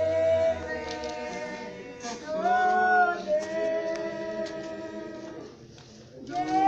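A group of mourners singing unaccompanied in long held notes, with a brief break about two seconds in and a pause near the end before the next phrase starts.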